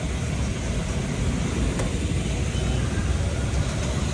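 Steady rumble of motor vehicles and road traffic, heavy in the low end, with a faint click about two seconds in.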